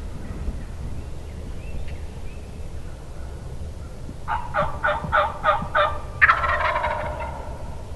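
A run of six evenly spaced turkey yelps, about three a second. Right after them a wild turkey gobbler gobbles once, a loud rattling call that trails off after about a second.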